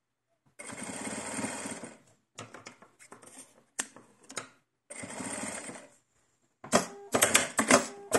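Domestic sewing machine stitching in two short runs, the first about a second and a half long and the second about a second, with scattered handling clicks between them. A cluster of loud sharp clicks comes near the end.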